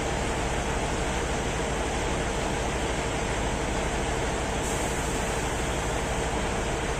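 Distant jet airliner engines running on the runway: a steady roar with a constant hum, and an added high hiss from about two-thirds of the way through.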